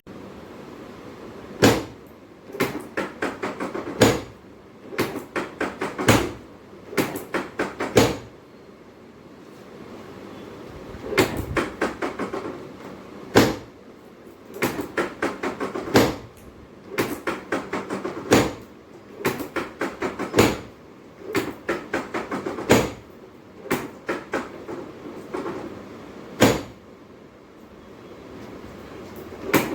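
Repeated knocking: a single louder knock about every two seconds, with quick runs of five to eight lighter taps between them, pausing briefly about a third of the way through.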